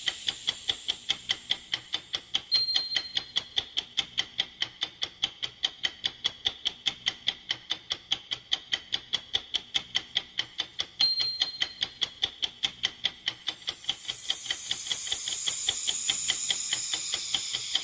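Countdown-timer sound effect: a fast, steady clock ticking at about four ticks a second. A bright chime strikes twice, about two and a half seconds in and about eleven seconds in. From about thirteen seconds a swelling whoosh rises under the ticks.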